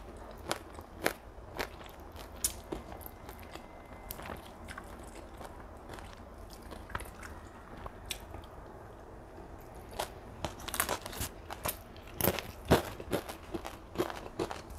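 A person chewing and smacking through a mouthful of fried flat rice noodles with beef. Sharp clicks are scattered throughout and come thickest from about ten seconds in.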